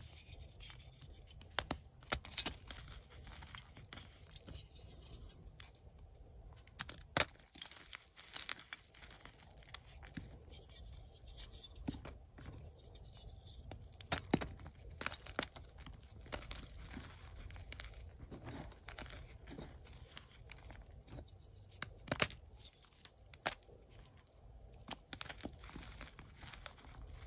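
Gym chalk blocks being broken and crushed by hand, crumbling with soft crunches and irregular crackles, with a few sharper snaps spread through.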